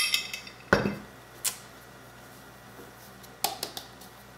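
Ceramic mixing bowls being handled and set down on a cutting board. There is a short ringing clink at the start, a dull thud just under a second in and a sharp click, then a few light knocks near the end as confectioner's sugar is tipped from a small bowl into the mixing bowl.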